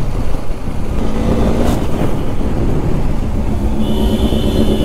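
Motorcycle engine running under way at low road speed, heard from on the bike with road and wind noise, likely the rider's KTM Duke 390 single. There is a sharp click about a second and a half in, and a steady high-pitched beep or horn tone for about the last second.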